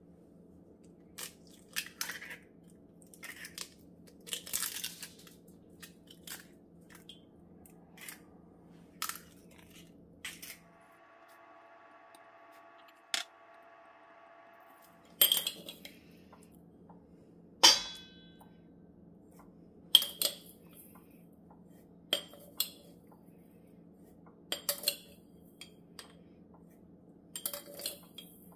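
Scattered clinks, taps and knocks of kitchen utensils: a metal spoon, a glass jar and a stainless steel mixing bowl, with one sharp ringing metallic clink about two-thirds of the way through. A faint steady hum lies underneath.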